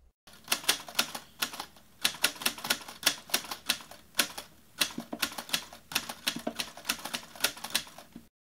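Typewriter sound effect: manual typewriter keys striking in an irregular run of sharp clacks, a few a second, as text is typed out letter by letter.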